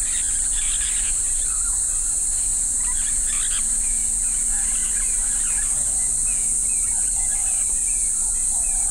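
Steady high-pitched insect chorus, with scattered short chirping calls over it.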